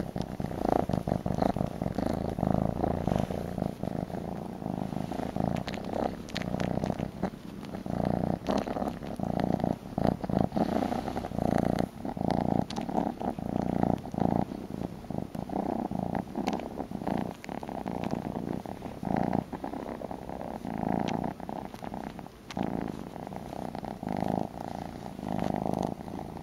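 A kitten purring loudly right against the microphone, with many small clicks and rustles over the purr.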